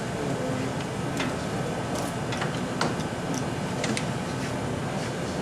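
Scattered light clicks and taps from handling and fastening the flexible current loop of a Fluke 376 FC clamp meter around a wire, over a steady machinery hum.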